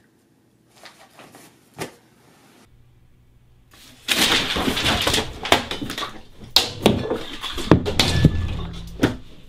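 A couple of soft clicks, then about four seconds in a sudden, loud, continuous run of clattering and knocking as objects are handled and moved about.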